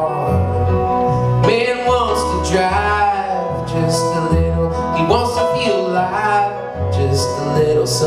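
A live country band playing a slow song: acoustic and electric guitars, upright bass and piano, with a man's voice singing at times.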